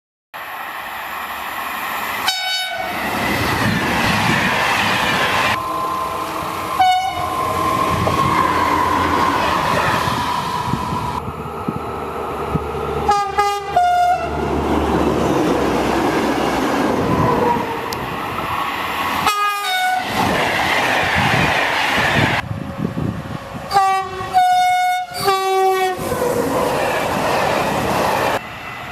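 French trains passing on the line with a steady rush of wheels on rail, sounding their horns in short blasts, several in quick succession around the middle and again near the end.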